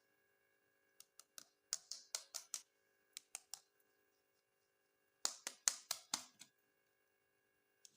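Small hard plastic parts clicking and tapping as they are handled, in three quick runs of sharp clicks.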